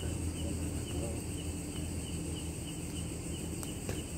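Steady high-pitched chorus of night insects over a low hum, with a couple of faint clicks late on.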